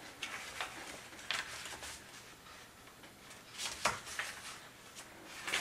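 Paper pages of two thick paperback books rustling and flicking as they are laid over one another page by page, with a few sharper page flicks scattered through.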